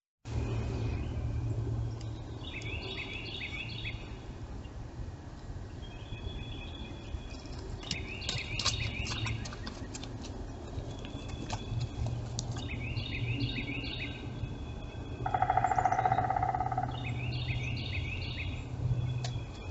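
A bird singing the same short phrase of quick sliding high notes about every five seconds, over a steady low hum. About two-thirds of the way through comes a louder, lower held tone lasting a second or so.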